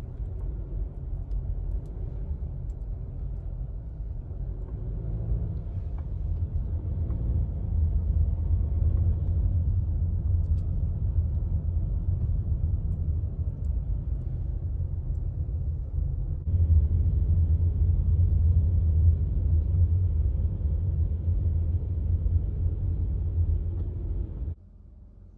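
Steady low rumble of road and engine noise inside a car's cabin as it drives, stepping up in level about two-thirds of the way through and dropping away just before the end.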